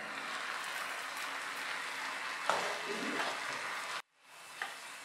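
Chopped red amaranth greens and vegetables sizzling in a nonstick pan just uncovered, cooking in the water the greens have released, with a click of the spatula about halfway through. The sound cuts out abruptly after about four seconds, then comes back quieter with a few light spatula clicks as stirring starts.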